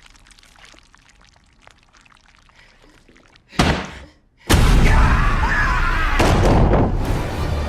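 Horror-film sound effects: faint scattered clicks and creaks, then a sudden loud hit about three and a half seconds in. After a moment of silence, a loud, dense noise with shrieking, gliding tones starts about four and a half seconds in and holds.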